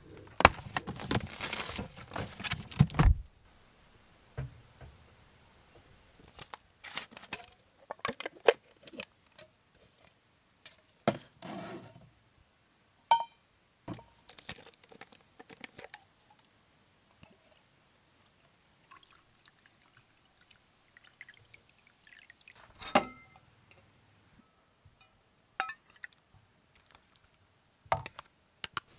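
Liquid being poured for about three seconds, then scattered light taps, knocks and clinks of camp cookware and utensils being handled, two of them ringing briefly.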